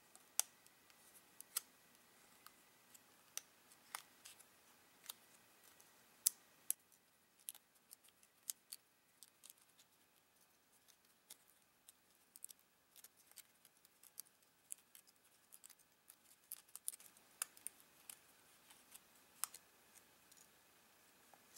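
Faint, sharp crackles and clicks of thin printed paper as triangular flaps are folded back and snapped out of a small cut frame, coming irregularly throughout and bunched together near the end.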